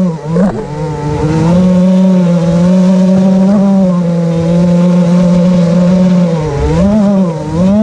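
FPV quadcopter's motors and propellers whining steadily in flight. The pitch dips briefly and comes back up about half a second in and again near the end, as the throttle is eased off and pushed back on.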